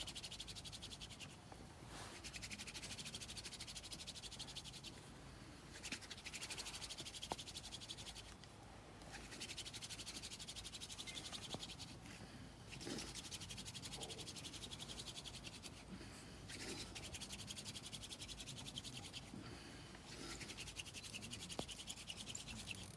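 Wooden hand-drill spindle spun back and forth between the palms in the notch of a hearth board, with a pinch of sand in the notch for grip. It gives a fast, rasping friction scratch in about seven runs of two to three seconds each, with short breaks between them as the hands go back to the top of the spindle.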